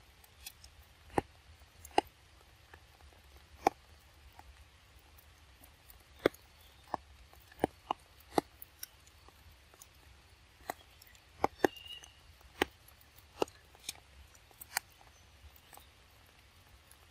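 Macaques biting and chewing soft fruit: irregular sharp smacks and clicks, well over a dozen spread through. A brief thin high tone sounds about twelve seconds in.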